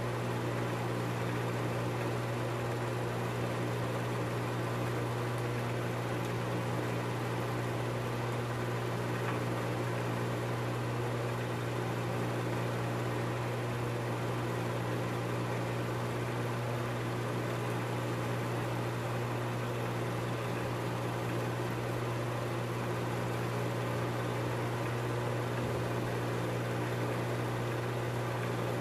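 Film projector running: a steady, unchanging motor and fan hum with hiss.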